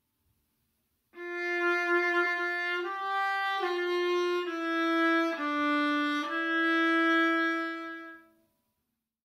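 Bowed violin-family instrument playing a slow practice phrase of six sustained notes, the first and last held longest. It starts about a second in and dies away near the end.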